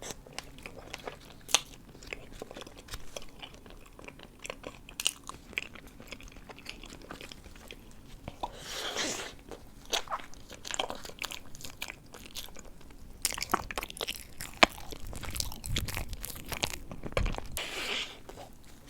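Close-miked eating of a dessert: repeated bites and chewing with crisp crunches and small wet clicks, typical of mukbang-style ASMR eating.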